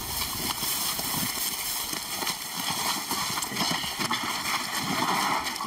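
A group of people's footsteps shuffling and crunching through dry grass, with the grass rustling and uneven thuds throughout.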